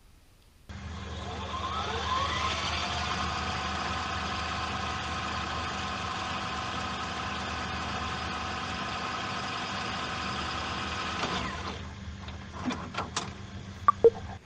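A motor starts abruptly and its pitch rises for about two seconds before settling into a steady hum. About eleven seconds in it winds down and stops, and a few clicks and knocks follow.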